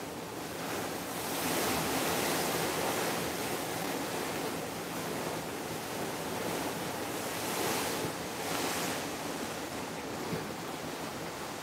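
A steady rushing noise, like air or wind across a microphone, that swells louder about a second and a half in and again around eight seconds.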